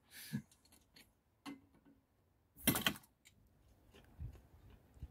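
Faint, scattered clicks and knocks, with one louder, short noisy clatter about two and a half seconds in and a dull thump near the end.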